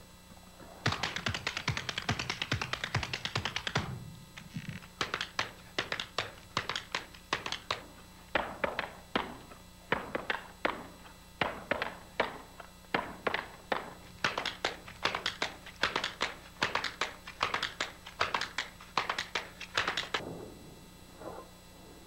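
Tap shoes striking a wooden stage floor. A fast, dense flurry of taps comes first, then a rhythmic run of short tap phrases that stops shortly before the end.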